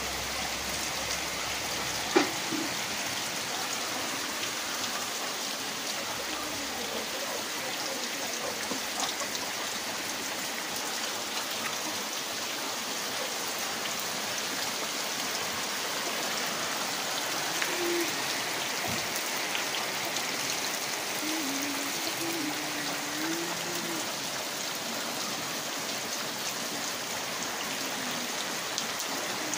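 Heavy monsoon rain falling steadily, a constant even hiss of rain on the road and roofs. A single sharp knock sounds about two seconds in.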